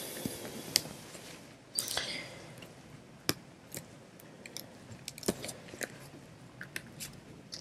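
A deck of cards handled and shuffled by hand: scattered soft clicks and rustles as the cards slip against each other, with a brief longer rustle about two seconds in.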